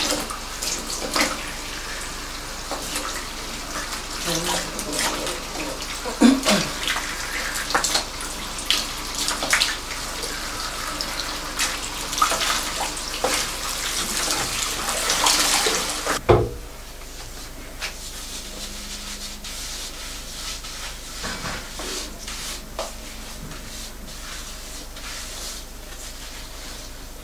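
A handheld salon shower head sprays water over hair into a backwash basin, with scattered splashes and spatters as gloved hands work the wet hair. The spray cuts off suddenly about sixteen seconds in. After that come quieter, softer sounds of hands working shampoo lather through the hair.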